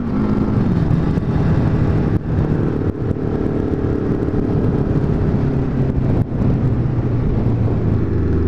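Motorcycle engine running under way: its note drops right at the start after a climb in revs, then holds fairly steady, with short dips in level about two, three and six seconds in.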